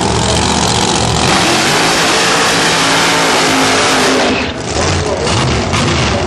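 Pro Mod drag-racing cars, among them a Pro Mod Dodge Viper, with engines rumbling that go to full throttle about a second in and stay very loud. There is a brief dip about four and a half seconds in.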